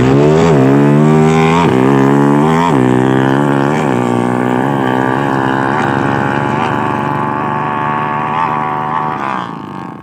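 Honda GL motorcycle engine being warmed up and revved: several quick throttle blips in the first three seconds, then running at a steadier raised speed with small blips, dropping off near the end.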